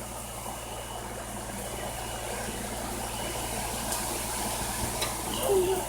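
Steady low hum and hiss of background noise, with a short wavering pitched sound near the end.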